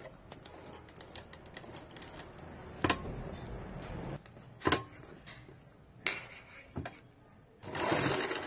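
A Batala Sartaj straight-stitch sewing machine stitching fabric in short runs, its needle mechanism clicking rapidly, with a couple of sharper knocks and a louder stretch of stitching near the end.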